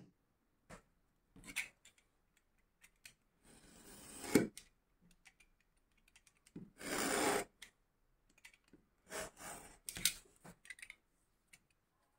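Leatherworking bench sounds: scattered light taps and clicks of a pointed marking tool working through a paper pattern on leather, and rustling of the paper and tape as the template is lifted off. There is one sharper knock about four seconds in.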